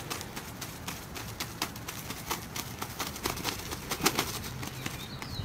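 An injured bird with broken legs moving and flapping about, making irregular light taps and scuffles, the loudest about four seconds in. A few short high chirps come near the end.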